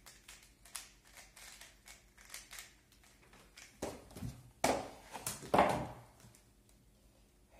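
Light clicks of a 3x3 Rubik's cube being handled and turned, several a second. About four seconds in, louder rustling and a few knocks follow for about two seconds, then it goes quiet.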